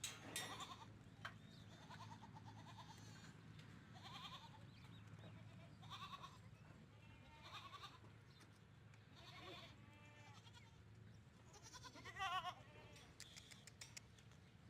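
Sirohi goat kids bleating faintly: about seven short, quivering calls a second or two apart, the loudest near the end.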